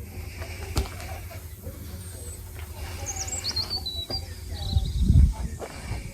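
A bird chirping a quick run of high notes around the middle, over a steady low rumble. A sharp click comes about a second in, and the low rumble swells loudly about five seconds in.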